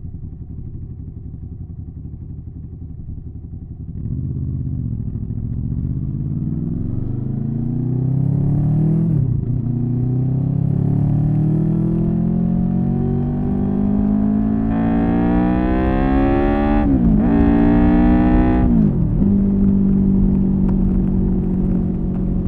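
Honda VFR800's V4 engine with a Leo Vince SBK aftermarket exhaust, heard close to the exhaust: running low at first, then pulling up through the gears, the pitch climbing in each gear and dropping sharply at each shift, then holding a steady speed near the end.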